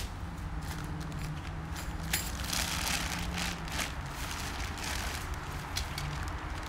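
Irregular rustling and light knocks from a new tent being handled and unpacked, over a steady low rumble.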